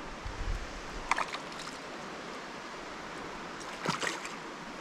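Steady rush of flowing river water, with a few short clicks or knocks about a second in and again near the end.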